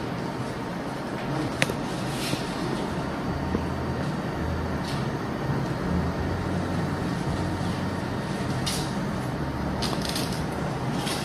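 Steady low hum and hiss of background room noise, with a few faint clicks and rustles.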